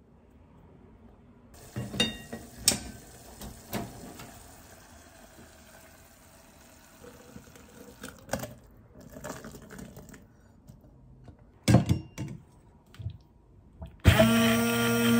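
Hard plastic and metal clicks and clunks as a hand blender and its beaker are handled, then cooked vegetables and broth poured from a pot into the plastic beaker. About a second before the end, an immersion hand blender switches on and runs steadily, blending the soup. The blender is the loudest sound.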